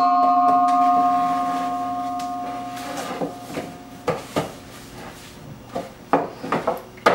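A stainless steel mixing bowl rings with a bell-like tone after one knock, fading away over about four seconds. Then come light knocks and clatter of metal loaf pans and utensils being handled on a wooden counter.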